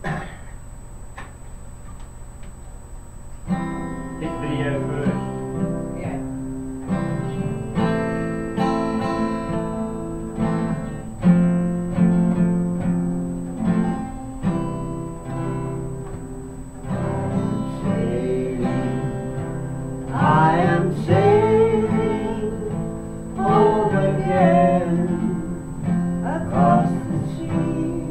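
Acoustic guitar strummed in steady chords, starting a few seconds in, with singing joining in about halfway through.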